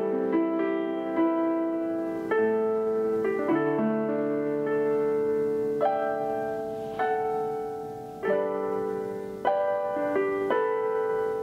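Background piano music: chords and melody notes struck and left to ring, a new chord every second or so.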